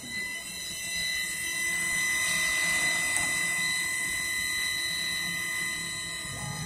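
CNC router spindle drilling holes in an aluminium plate, running with a steady high whine that grows louder about a second in and eases slightly near the end.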